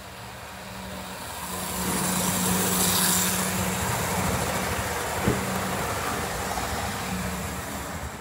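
Model electric train running past on the layout track: a steady motor hum with wheel rumble that builds over the first few seconds and eases off toward the end. A single sharp click comes about five seconds in.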